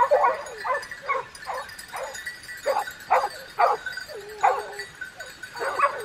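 A pack of hunting hounds barking and baying in a quick string of short, overlapping calls. About halfway through, one dog holds a longer drawn-out bay.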